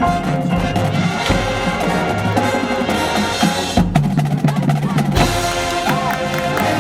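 Marching band playing: held wind notes over drumline percussion.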